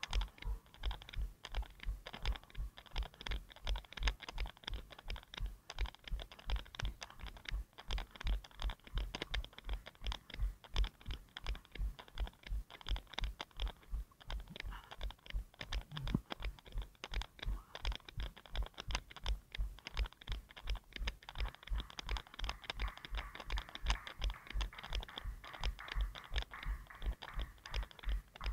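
A runner's footfalls, about three a second, picked up as steady thuds through a camera strapped to the runner's head.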